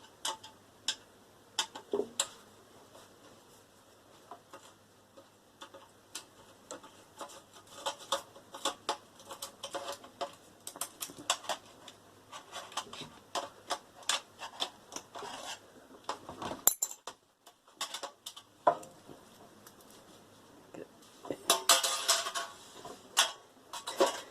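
Scattered metallic clicks and clinks from a microwave oven being taken apart by hand: a screwdriver working at screws and metal parts knocking together, growing into a busier clatter near the end.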